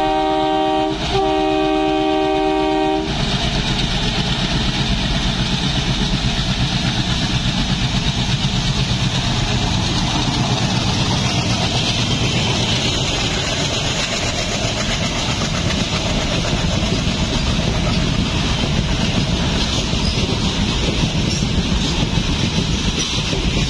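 Horn of twin WDG3A diesel locomotives sounding a chord of several tones, with a short break about a second in and stopping about three seconds in. Then the locomotives' engines and the goods wagons pass close by: a loud, steady rumble and clatter of wheels on rails.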